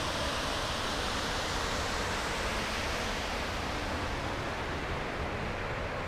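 Steady rush of a mountain creek and its falls, a dense even hiss with no breaks; the higher part of the hiss fades a little in the last couple of seconds.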